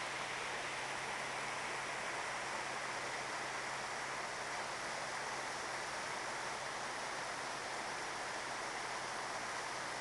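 Small forest waterfall cascading over boulders: a steady rush of water.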